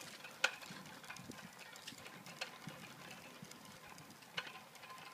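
Faint light clicks and ticks, a few sharper ones about every two seconds, with no voices.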